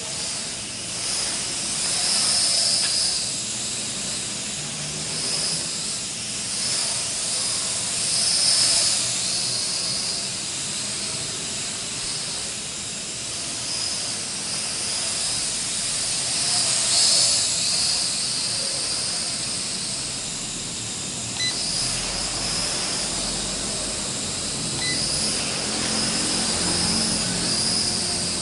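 L6036 RC quadcopter's electric motors and propellers running, a steady rushing hiss with a high whine that wavers in pitch and swells a few times as the aircraft manoeuvres.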